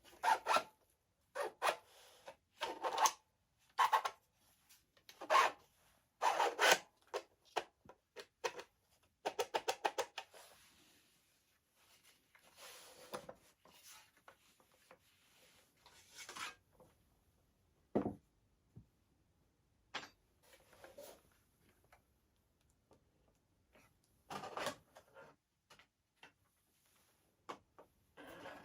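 Plastic airsoft gun parts being handled and fitted together, making short, irregular rubbing and scraping strokes. There is one sharp click about eighteen seconds in.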